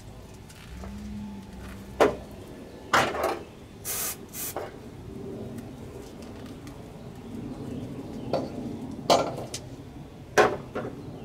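A handful of sharp knocks and clatters at irregular intervals, with two short rustling bursts about four seconds in.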